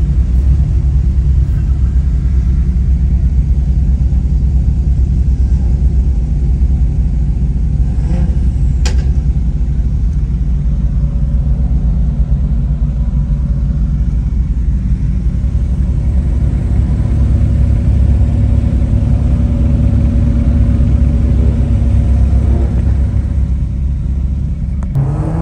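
Car engine and exhaust running with a steady low rumble, rising briefly in pitch at the very end.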